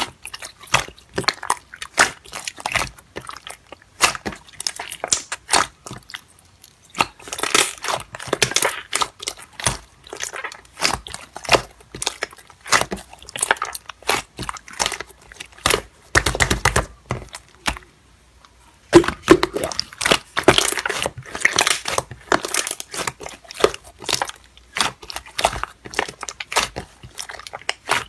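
Slime being squeezed, pinched and stretched by hand: dense, irregular wet clicks, pops and crackles, with a short lull a little past halfway.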